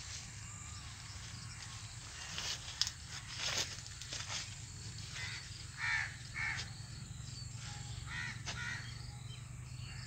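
Crows cawing in the background, two pairs of harsh caws in the second half, over a steady low hum.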